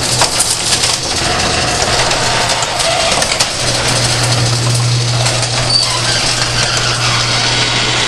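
Garage door rolling shut: the panels clatter and rattle along the metal tracks with many small clicks, over a low steady hum that drops out about a second in and returns around the middle.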